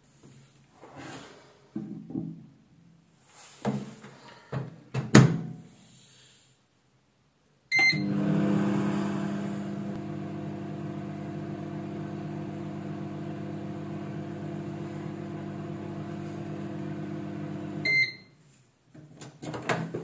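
Samsung microwave oven heating a glass of water, now working again after the repair of its input short circuit. Clicks and knocks as the glass goes in and the door shuts are followed by a beep about eight seconds in. The oven's transformer and fan then give a steady low hum for about ten seconds, which cuts off with a beep.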